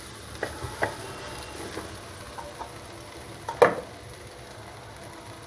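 Wooden spatula stirring cooked rice into fried vegetables and egg in an aluminium pot, with soft scrapes and light taps against the pot. There is one sharper knock about three and a half seconds in.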